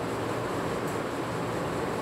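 Steady background noise, an even hum and hiss with no speech and no distinct events.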